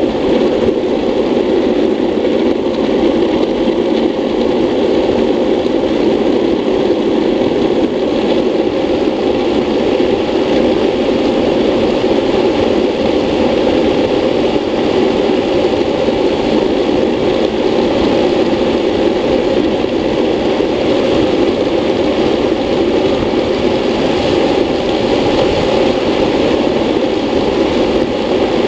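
Steady rushing noise of a classic luge board rolling downhill at speed: the wheels running on asphalt, with wind over the helmet-mounted camera.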